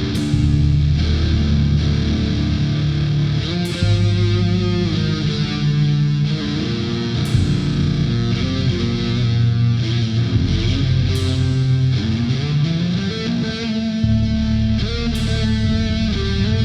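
War metal music: heavily distorted electric guitar riffing, with a sharp crash about every four seconds.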